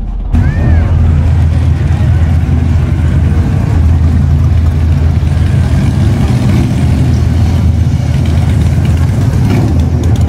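A line of cruiser motorcycles riding slowly past one after another, their engines running steadily at low revs.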